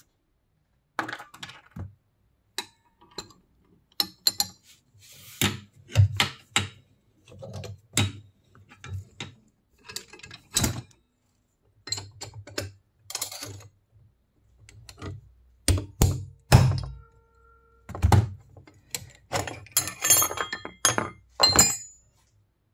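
Hand tools working on the steel spindle parts of an old bench drill press: a long series of sharp metallic knocks and clinks with short pauses between them, a few ringing briefly.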